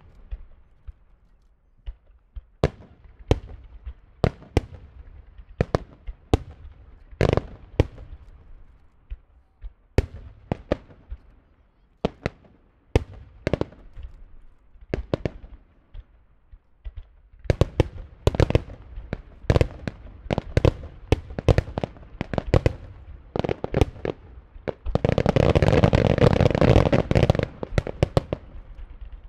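Fireworks shells and star mine volleys bursting, a series of separate sharp booms that come closer and closer together from about halfway through. Near the end there is a dense, unbroken barrage of bangs and crackling for about three seconds.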